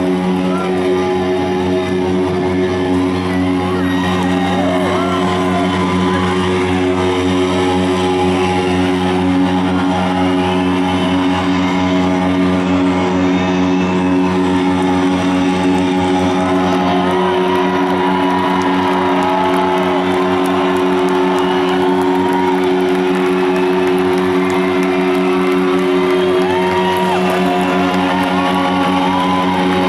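Live rock band in an arena holding a steady, droning amplified chord, with the crowd cheering and whooping over it.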